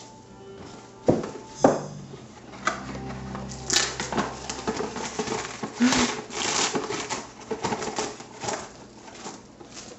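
Things being handled at close range: two sharp knocks about a second in, then an irregular run of crinkling, rustling and light clattering.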